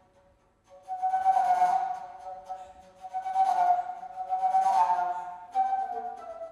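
Bass flute playing long held notes, with airy breath noise swelling and fading over them three times. It enters about a second in after a brief near-silent pause, and the pitch steps down near the end.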